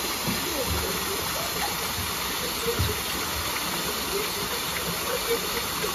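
Small artificial rock waterfall pouring into a shallow pond, a steady rushing, splashing hiss. A couple of brief low bumps come near the start and about three seconds in.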